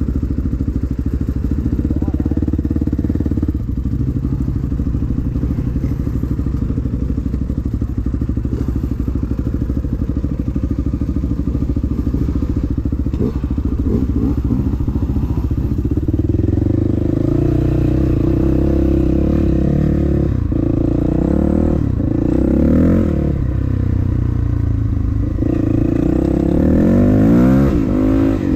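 Dirt bike engine running at low, steady revs, then, from about halfway, revving up and down as the bike is ridden along the trail, with a strong rise in revs near the end.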